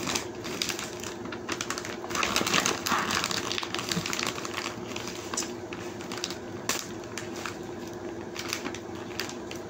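Glossy plastic gift bag crinkling and crackling as it is handled and its taped top is picked open, in a dense run of small crackles that is busiest a couple of seconds in. A steady hum runs underneath.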